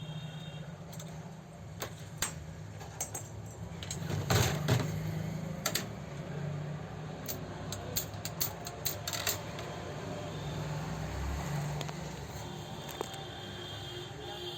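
Irregular metallic clicks and clinks of small metal parts and tools being handled on an old overlock sewing machine, with a cluster of quick clicks about halfway through, over a steady low hum.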